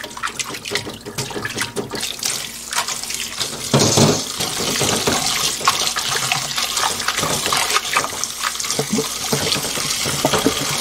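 Water from a colander of blanched perilla shoots draining into a glass bowl with some light knocking. A little under four seconds in, a kitchen tap starts running steadily into the bowl as a hand swishes the greens to rinse them in a stainless steel sink.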